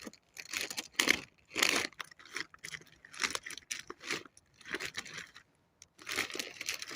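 Food packets rustling and crinkling as they are handled, in a run of irregular crackly rustles with a short pause near the end.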